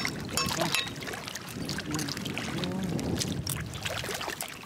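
Irregular sharp clicks and scraping of a metal blade against oyster shells, over wet, watery sounds from the mud.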